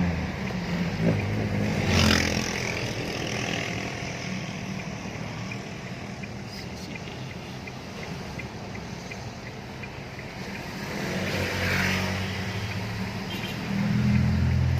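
Cabin sound of an Isuzu D-Max pickup with the 3.0 4JJ3-TCX diesel driving slowly: steady engine and tyre noise that swells a few times, with a faint regular ticking in the middle.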